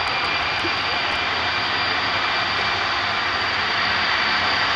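A Boeing 747-400's four Rolls-Royce RB211 jet engines running as the airliner rolls along the runway after landing. The jet noise is loud and steady, with a high whine over it.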